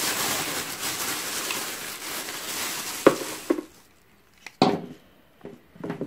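A clear plastic bag rustling and crinkling as a heat gun is pulled out of it, stopping after about three and a half seconds. After that come a few light knocks as the plastic-bodied tool is handled.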